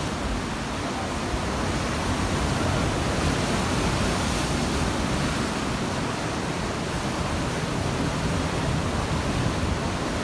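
Sea waves splashing against rocks, a steady dense wash of surf with no distinct breaks.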